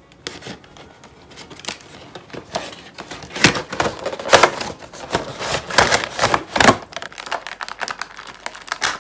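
A cardboard toy box and its clear plastic blister tray being opened and handled: crinkling plastic and many sharp crackling clicks, louder in the middle.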